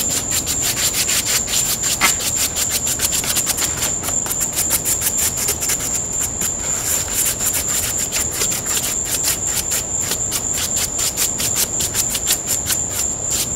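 A brush sweeping and rubbing over a styrofoam RC airplane wing to clear off debris. Crickets chirp steadily in rapid, even pulses throughout.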